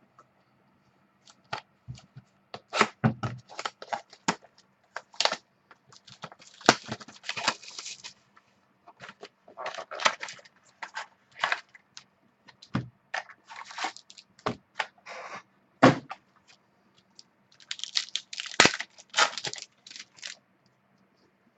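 A trading card pack's foil wrapper being torn open and crinkled, with cards slid out and handled: a run of sharp crackles and short tearing sounds, densest about two seconds in, around seven and ten seconds in, and again near the end.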